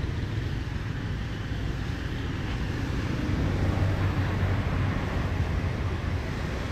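Street traffic: engines of passing vehicles over a steady hiss, with one engine growing louder around the middle.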